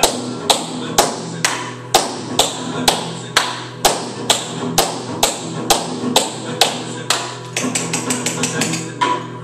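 Tap shoes striking a wooden floor in a steady beat of about two taps a second, breaking into quicker runs of taps near the end, over background music.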